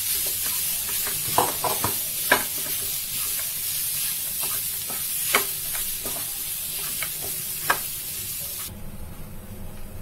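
A spatula stirring and mashing potato stuffing in a hot steel frying pan, over a steady sizzle, with a few sharp knocks of the spatula against the pan. The sizzle cuts off suddenly near the end.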